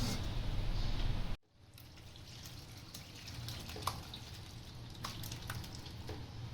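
Whey from lemon-curdled milk pouring and dripping through a cotton cloth into the vessel below as the paneer is strained. A louder run of pouring cuts off abruptly about a second and a half in. After that, scattered single drips and small plops.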